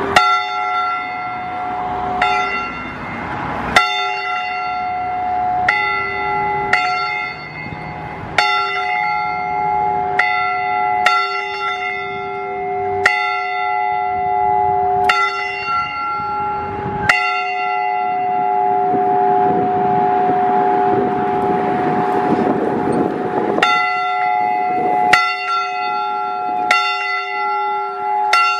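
A single church bell tolling, struck about every one to two seconds, its tone ringing on between strokes. About two-thirds of the way through, the strikes pause for several seconds, then resume.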